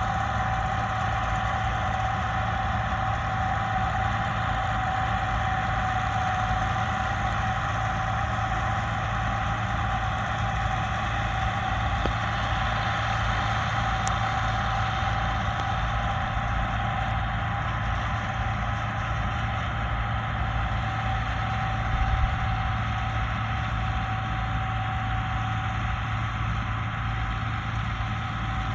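Bizon Z056 combine harvester's diesel engine running steadily, with a steady whine over the low rumble.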